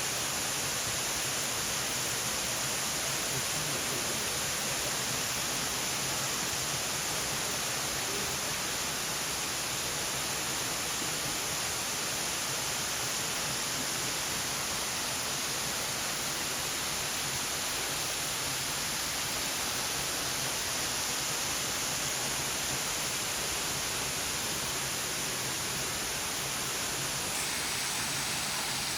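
Waterfall pouring: a steady, even rush of water.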